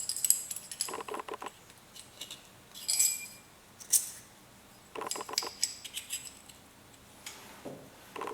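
Small steel collets for a drill bit grinder clinking and rattling against each other and the tool holder as they are handled, in several short bursts of sharp, ringing clicks with quiet in between.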